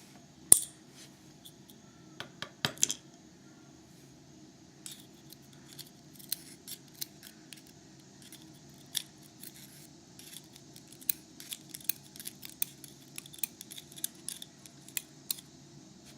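Small metal clicks and taps from tweezers working the pins and springs out of a Euro lock cylinder: one sharp click about half a second in, a few louder clicks around two to three seconds in, then a run of light irregular ticks.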